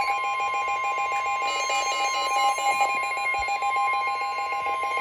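Emergency Alert System warning alarm: one steady, high, pure tone held without a break, with a quicker on-off beeping layered over it. The steady tone cuts off suddenly at the end, just before the spoken warning message begins.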